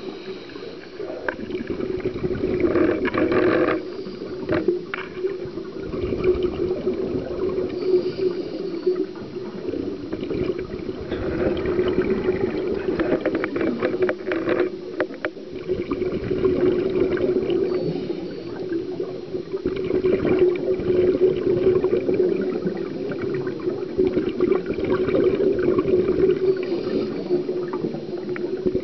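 Scuba diver's regulator breathing underwater: exhaled bubbles gurgling out in surges every few seconds over a steady low drone, heard through a camera's underwater housing.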